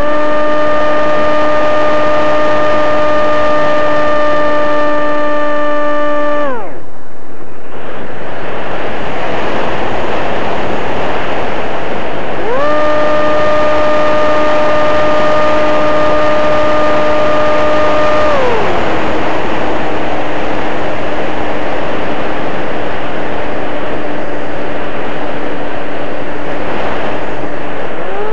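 Electric motor and propeller of an RC flying wing, heard from an onboard camera: a steady whine at high throttle that is cut about six seconds in, leaving only wind rush, then throttled up again with a rising whine, eased back to a lower steady tone, and opened up again near the end. Wind rushes loudly over the microphone throughout.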